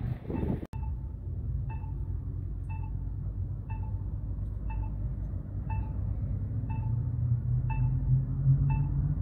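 A short electronic beep repeating about once a second, over a steady low rumble that grows louder and rises slightly in pitch near the end. Before the beeping starts, wind noise on the microphone cuts off abruptly.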